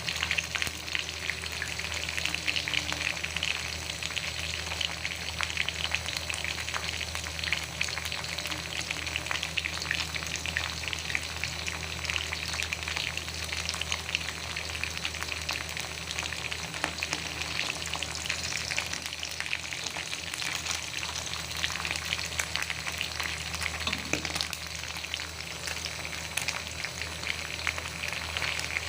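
Food frying in hot oil: a steady sizzle with dense, continuous crackling and spitting, over a faint low hum.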